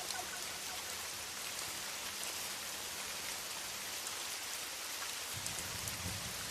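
Steady rain falling, an even hiss of many drops, with a low rumble coming in about five seconds in.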